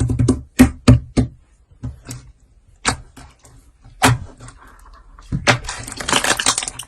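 Slime being pressed and worked by hand, giving sharp irregular clicking pops, then a dense run of crackling near the end.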